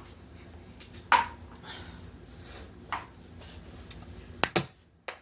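A few sharp knocks and clicks of hard objects being handled. The loudest comes about a second in and rings briefly, another follows near three seconds, and two come close together near the end.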